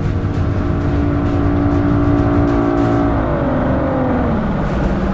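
Boat engine running at steady speed, then throttled back about three seconds in, its pitch falling smoothly and settling at a lower, slower running note.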